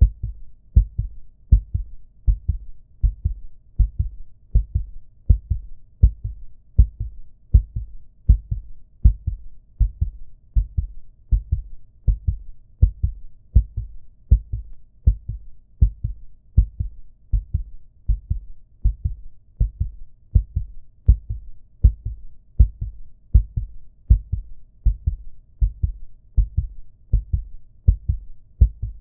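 Human heartbeat sound effect: low lub-dub double thumps in a steady, even rhythm.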